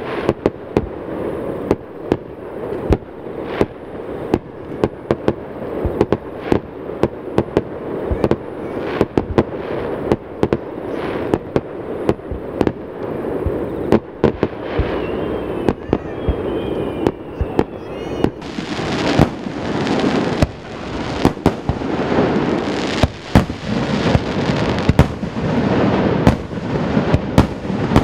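Fireworks display: a rapid, irregular series of shell bursts and launch bangs over continuous crackling, echoing off the surrounding mountains. A few short whistles sound about halfway through, and the crackle grows denser and brighter after that.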